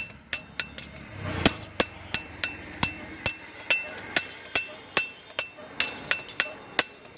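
Steady hand-hammer blows on hot steel on an anvil while forging a sickle blade, about three strikes a second, each with a short metallic ring.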